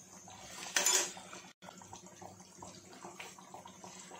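Dum aloo gravy simmering in a pan on a low gas flame, with a short louder noise about a second in.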